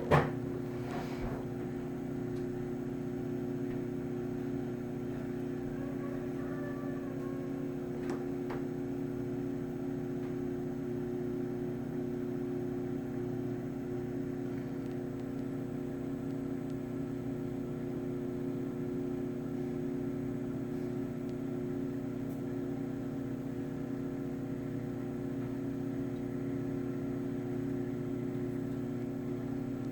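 Toshiba microwave oven running with a steady hum, after a sharp clunk right at the start.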